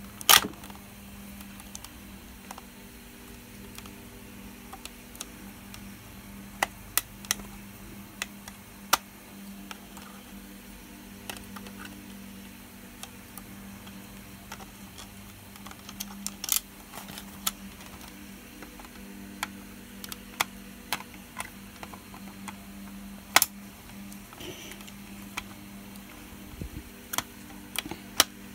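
Small screwdriver clicking and scraping in the screws of a plastic VHS cassette shell, with the cassette being handled while the screws are taken out: scattered sharp clicks and taps at irregular intervals, a few much louder ones, over a steady low hum.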